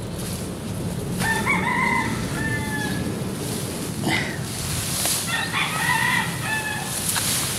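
A rooster crowing twice, each crow about two seconds long, over a steady low background rumble.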